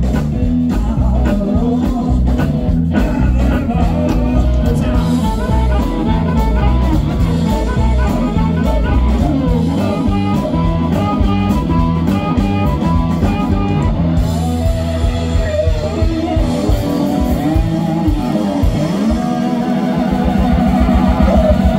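Live blues-rock band playing: electric guitar, bass and drum kit with voices singing. It grows a little louder near the end, where the guitar plays bending, wavering notes.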